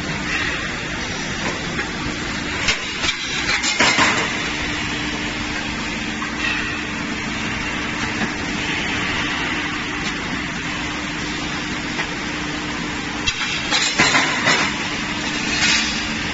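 Steel drum band production-line machinery running with a steady low hum, with clusters of sharp knocks about three seconds in and again near the end.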